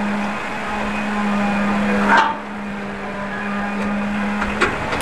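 Steady machine hum at one pitch, with a short scraping rasp about two seconds in and a few light knocks near the end.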